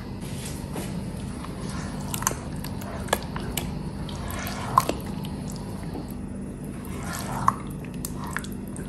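Thick white sauce pouring into a pot of chicken, then being stirred in with a silicone spatula: wet, sloppy drips and squelches with a few sharp clicks, over a steady low hum.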